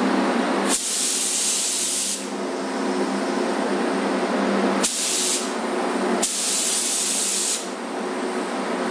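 Gravity-feed paint spray gun hissing in three bursts, the first and last over a second long with a short one between them, over a steady background hum.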